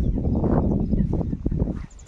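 Wind rumbling on a phone's microphone outdoors, with faint knocks of walking and handling, dying away near the end.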